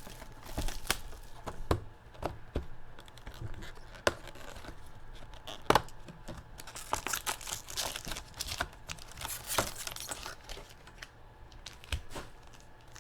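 Plastic wrapping and cardboard being torn open and crinkled, with scattered clicks and taps, as a sealed box of trading cards is opened. The rustling thickens for a few seconds past the middle.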